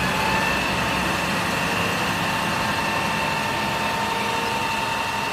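Isuzu FVZ water tanker truck's diesel engine running steadily while its roof-mounted water cannon sprays, heard as an even rushing noise with a steady high whine over it.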